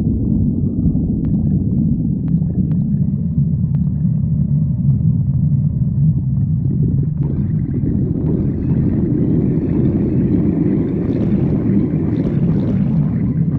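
A person's stomach growling: a continuous low rumble that turns brighter and fuller about halfway through.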